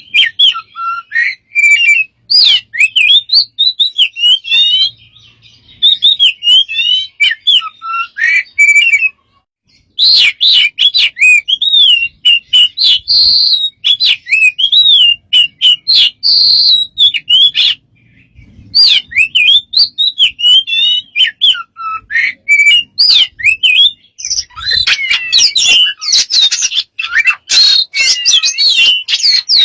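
A bird singing in long runs of quick, warbling whistles and chirps, broken by short pauses; near the end the song becomes denser and busier.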